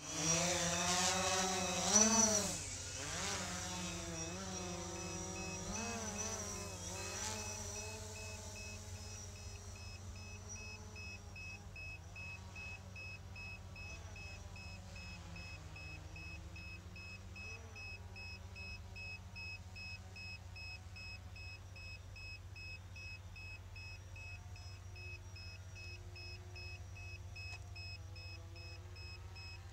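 A DJI Phantom quadcopter's propellers whine as it lifts off, the pitch swooping up and down with the throttle and loudest about two seconds in. The whine then fades over the next several seconds as the drone climbs away, leaving a faint, steady, high pulsing tone.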